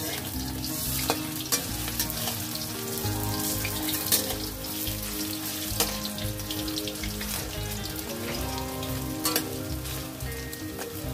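Bottle-gourd-leaf pakoras in a batter of rice paste and gram flour sizzling steadily as they fry in hot oil in a kadhai. A metal spatula scrapes and knocks against the pan several times as the fritters are turned.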